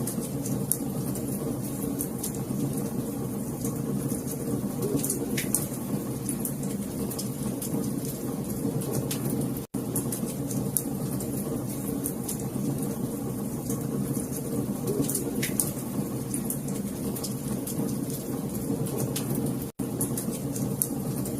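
Wood fire crackling: a steady low rumble with scattered sharp pops and snaps. The sound cuts out for an instant about ten seconds in and again about twenty seconds in.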